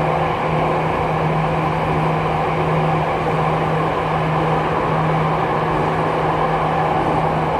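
Steady running noise heard from inside a Jakarta MRT train car: a broad rumble from the moving train with a constant low hum.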